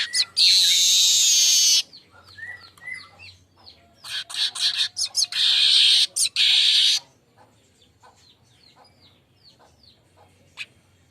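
Weaver bird (manyar) song: quick chattering chirps broken by two long, loud wheezy buzzes, the first right at the start and the second from about four to seven seconds in. After that only faint, quick chirps go on.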